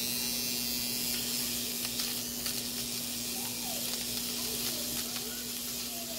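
Finishing Touch Flawless Brows electric brow trimmer running against the eyebrow: a steady hum with a hiss over it and a few faint ticks.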